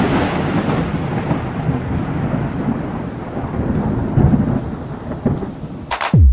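A long rolling rumble of thunder that slowly fades, with a rain-like hiss over it. About six seconds in, electronic music with deep, falling kick drums begins.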